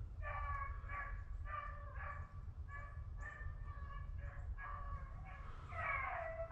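Hunting beagles baying on a rabbit hunt, a run of about ten drawn-out bays, each about half a second long, following one another steadily, heard faintly through the woods. A steady low rumble runs underneath.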